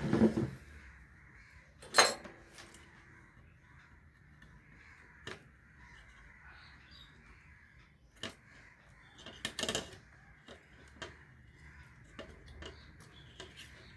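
Sharp knocks and clatters of small tools and electronic parts handled on a workbench while the player is taken apart. The loudest come near the start and about two seconds in, with a quick cluster of clicks around ten seconds.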